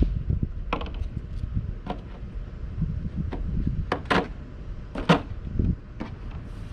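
Sink drain parts being handled and fitted together: scattered clicks and knocks, the loudest about four and five seconds in, over a low rumble of wind on the microphone.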